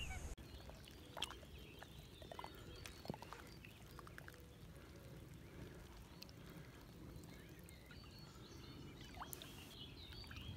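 Near silence: faint outdoor ambience with a few scattered small ticks.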